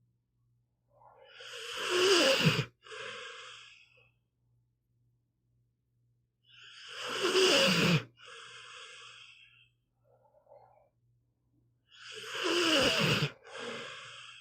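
Pit bull snoring in its sleep: three loud snores about five seconds apart, each followed by a softer breath.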